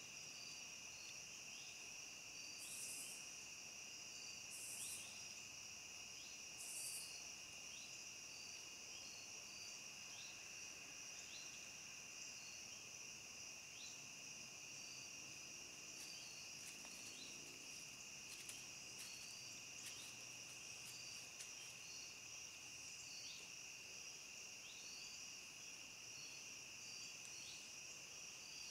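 Faint, steady chorus of insects trilling in the woods, in two high continuous bands, with a short chirp repeating about once a second. Three brief soft hisses come about two seconds apart in the first few seconds, and faint scattered ticks follow later.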